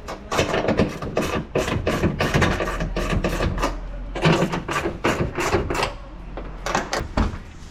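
Irregular run of sharp clicks and clattering, several a second, from hand work with tools and parts on the car. It stops about seven seconds in.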